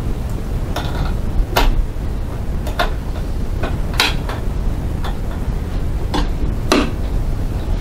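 A series of hard clicks and light clatter, about seven or eight at irregular spacing, from fitting the bobbin case back into a Janome sewing machine's bobbin compartment and handling its hinged cover plate. A low steady rumble runs underneath.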